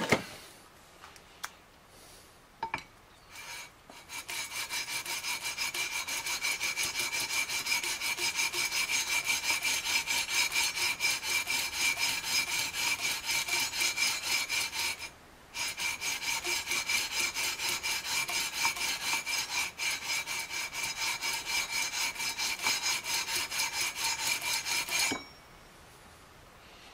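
A long aluminium sanding beam with 320-grit sandpaper stroked back and forth over the frets of a guitar neck, about three strokes a second, each with a high scraping ring from the metal fret wire. The frets are being levelled by sanding down the high ones. There is a short pause partway through, and the strokes stop near the end.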